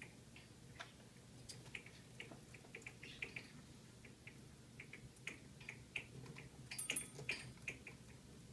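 Faint, irregular small clicks and taps from an African grey parrot climbing a rope net and rope perch, its claws and beak gripping the rope. The clicks come a few per second, with a denser, sharper cluster about seven seconds in.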